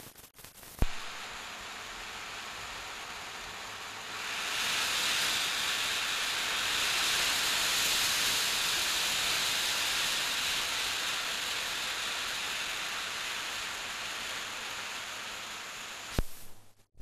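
Escaping steam hissing from an LNER A4 Pacific steam locomotive, swelling about four seconds in and then slowly easing. There is a sharp click at the start and another near the end.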